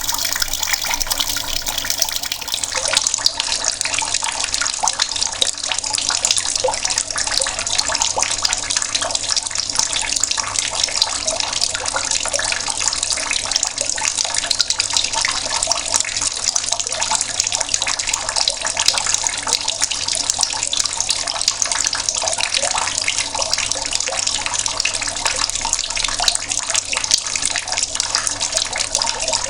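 Tap water running in a steady, splashing stream from an outdoor tap.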